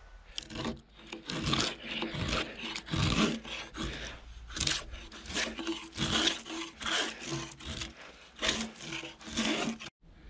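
Hand saw cutting wood in steady back-and-forth strokes, about two and a half strokes a second, stopping abruptly near the end.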